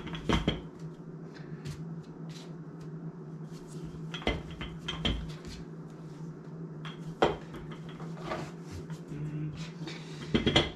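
Wooden rolling pin and plastic cutting mat handled on a kitchen counter while dough for dumplings is rolled out: a handful of sharp knocks and clatters a few seconds apart, with a quick cluster near the end, over a steady low hum.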